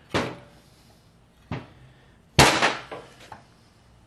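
Metal clunks and knocks from a tiller's gearbox case as its two halves are worked apart by hand: five separate knocks, the loudest a little past halfway, with a short ringing decay.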